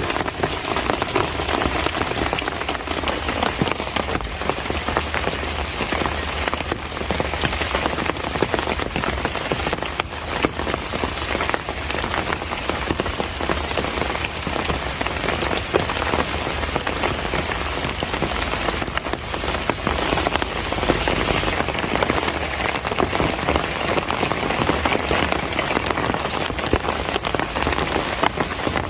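Steady heavy rain pattering on surfaces, a dense even hiss of many drops.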